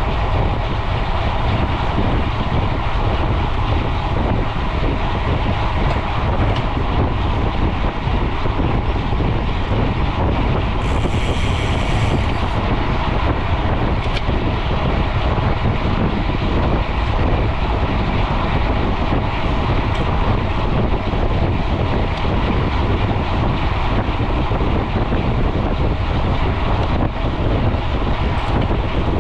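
Steady wind rushing over an action camera's microphone as a mountain bike is ridden fast along a road, with a brief high-pitched tone about eleven seconds in.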